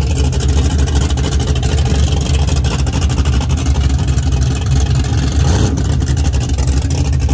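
Car engine running at idle close by, a loud, deep, steady rumble.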